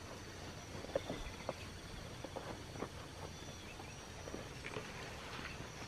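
Quiet outdoor ambience: scattered soft footsteps and handling knocks over a faint, steady, high-pitched insect drone, with a few faint bird chirps.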